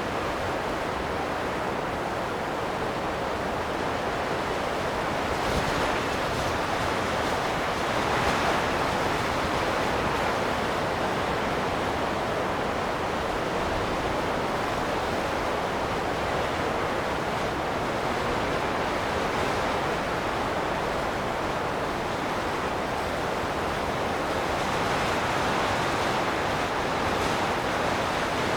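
Wind blowing steadily as a continuous rush, swelling into stronger gusts a few times.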